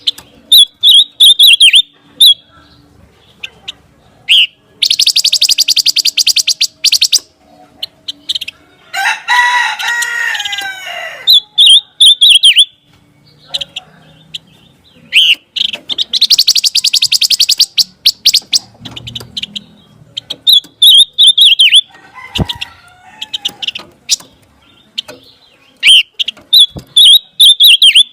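Pancawarna songbird singing loudly: series of sharp, quick chirps broken by two rapid, buzzing trills about two seconds long. In the middle comes a lower, two-second crowing call like a rooster's.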